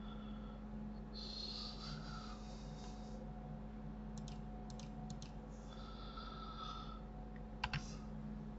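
Quiet room tone with a steady low electrical hum, broken by a few soft computer mouse clicks about four to five seconds in and a sharper pair near the end. Two soft breaths through the nose come between them.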